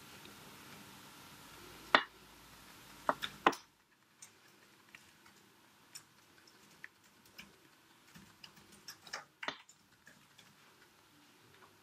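Tip of a pointed drawing tool tapping on a paper postcard as it sets down tiny dots of paint: soft, irregular ticks, with a few sharper clicks in the first few seconds.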